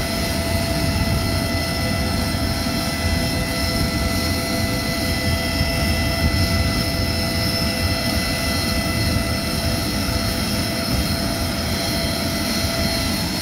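Aircraft engines running steadily while the plane stands parked, a constant whine of several steady tones over a low rumble.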